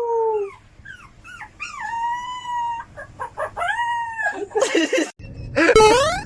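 A dog howling in a series of long drawn-out calls, some sliding down in pitch at the end, with louder rising calls near the end.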